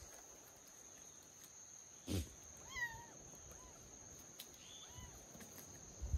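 Kittens mewing faintly, a few short rising-and-falling mews. A soft thump comes about two seconds in, over a steady faint high-pitched whine.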